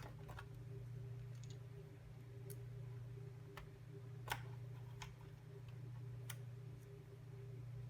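A few scattered light clicks and taps from laptop parts and tools being handled during disassembly, the sharpest about four seconds in, over a steady low hum.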